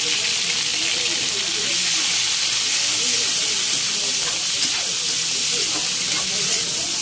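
Raw pork pieces sizzling steadily in hot oil in a pan, stirred around with a utensil near the middle.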